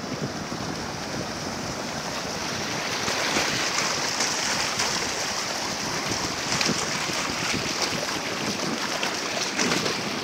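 Shallow surf washing in, with dogs splashing through the water, a steady hissing rush that grows louder about three seconds in.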